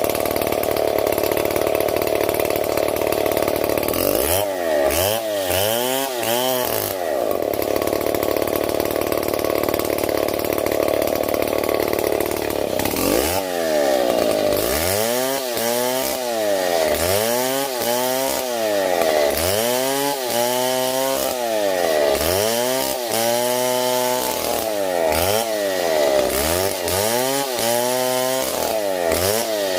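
STIHL MS 070 two-stroke chainsaw running hard in wood, loud and steady at first. Its engine pitch swings up and down a few times, settles, then from about halfway on rises and falls over and over, roughly once a second.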